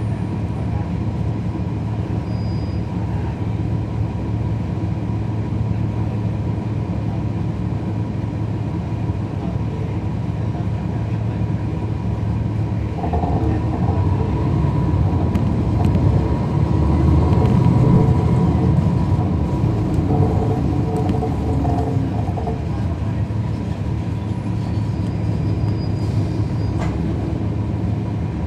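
Cummins ISL9 diesel engine and ZF Ecolife six-speed automatic of a 2011 NABI 416.15 transit bus, heard from the rear of the cabin while riding. The engine pulls harder and louder from about halfway through, then eases off near the end.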